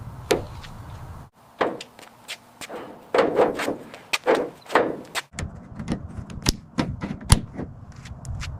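Irregular sharp knocks, taps and clicks, a few each second, as of hard objects being handled and set down, over a low rumble; the background changes abruptly twice.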